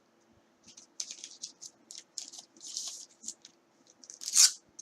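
Trading cards being handled and flipped through by hand: a run of short, crisp card-on-card slides and flicks at an uneven pace, with one louder swish near the end.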